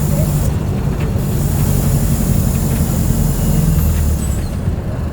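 Mercedes-Benz OF 1722M city bus engine running under way, a steady low drone with hiss above it; the engine note drops lower a little before four seconds in.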